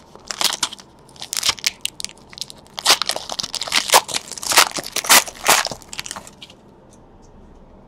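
Foil wrapper of a 2018 Panini Chronicles baseball card pack being torn open and crinkled as the cards are pulled out: a run of sharp crackles that stops about six and a half seconds in.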